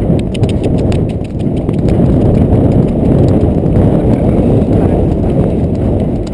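Hoofbeats of a ridden horse moving at speed over a soft stubble field, heard from the saddle, under a heavy low rumble of wind on the microphone. Sharp clicks of the hooves and tack come thickest in the first two seconds.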